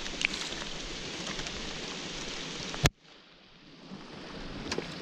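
Steady rain falling on river water and on a kayak, a hiss of many drops. A single sharp knock comes nearly three seconds in, after which the sound drops low and slowly builds back up.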